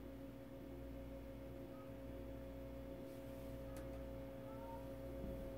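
Faint, steady electrical hum made of several steady tones, from a 1940 Zenith 10S464 tube radio being brought up slowly on a Variac at about 90 volts, its speaker just beginning to come alive with no station yet. A couple of faint clicks sound partway through.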